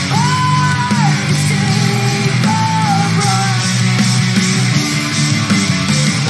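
Rock band playing live, drums and bass to the fore under guitar, with a woman singing a long high note that drops away about a second in, then a shorter held note near the middle.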